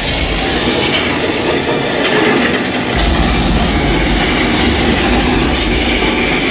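Dark-ride sound effects of a train and explosions played loud: a dense, continuous rumble and roar. The deep bass falls away early on and returns strongly about three seconds in.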